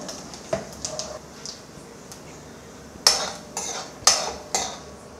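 Steel spoon stirring seeds and dals in hot oil in a metal kadai, scraping and knocking against the pan: a few light clicks at first, then about four sharp scrapes roughly half a second apart near the end.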